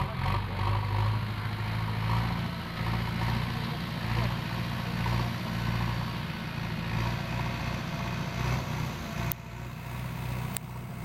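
Diesel engine of a JCB 3DX backhoe loader running steadily, with two brief sharp clicks near the end.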